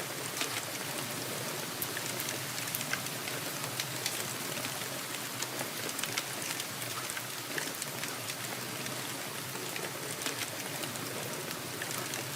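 Steady rain falling: a dense, even hiss with many separate drops ticking sharply on a surface, scattered throughout.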